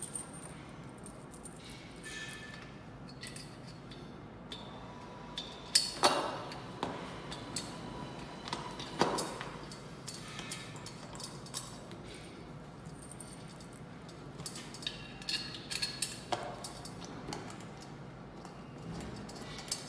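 Metal clinks, clicks and knocks of a weight bench's steel frame and backrest brackets being handled and bolted together by hand. The loudest are two knocks about six and nine seconds in, with a quick run of clinks a few seconds before the end.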